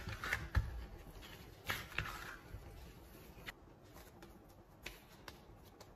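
Hands kneading a flour dough on a silicone pastry mat: irregular soft thumps and dabs, busiest in the first two seconds, then sparser.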